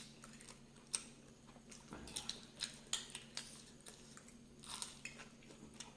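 A person biting and chewing chillies: faint, irregular crunches and mouth clicks.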